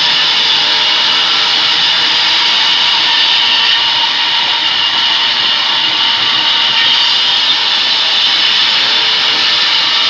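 Vertical band saw running steadily, its blade cutting through a rain tree wood slab as it is fed through.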